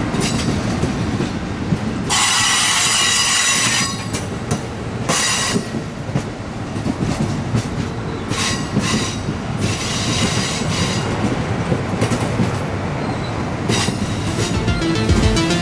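A train rolling past with its wheels squealing against the rails in several stretches, the longest about two seconds in.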